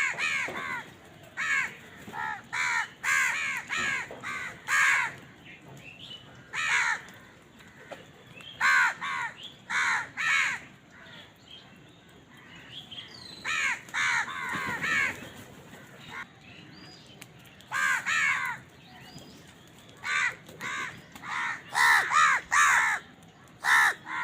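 Crows cawing: short calls in clusters of several at a time, with pauses of a second or more between the clusters.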